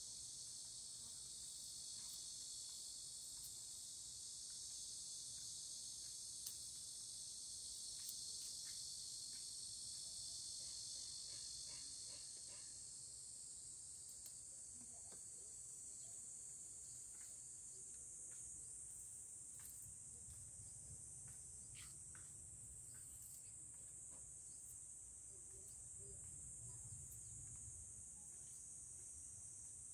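A steady, high-pitched insect chorus, whose lower part drops out about halfway through, leaving a thinner, higher drone. Faint scattered small ticks come from the knife and onion stalks being handled.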